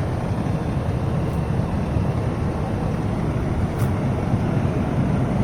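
A fire truck's diesel engine running steadily, a continuous low rumble.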